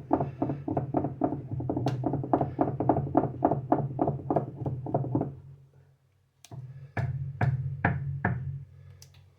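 A spoon beating thin pancake batter in a mixing bowl, knocking against the bowl at about five strokes a second. The beating stops about five and a half seconds in, followed by a few separate knocks.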